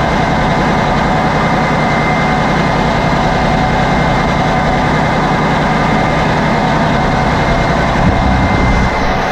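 Loud, steady drone of diesel machinery running in a fishing trawler's engine room, with a faint steady high whine over it.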